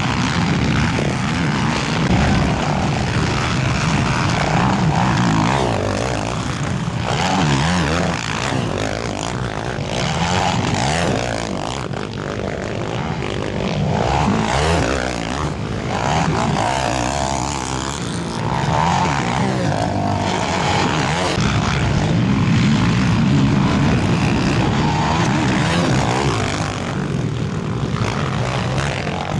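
Racing quad ATV engines revving on a motocross track, several at once, the pitch rising and falling as they accelerate and back off.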